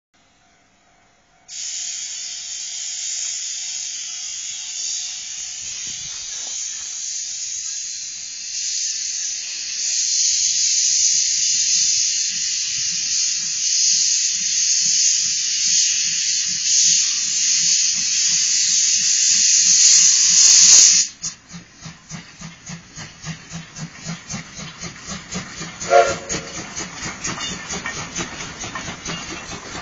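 JNR Class C12 steam tank locomotive blowing off steam with a loud steady hiss that cuts off suddenly about two-thirds of the way through. Its exhaust chuffs then start, coming faster as the engine gets under way, with one short louder sound near the end.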